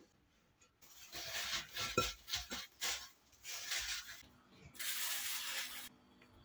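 Plastic cling film crinkling and crackling as it is stretched over a glass bowl and pressed around its rim, in a run of uneven crackles followed by a steadier hiss lasting about a second.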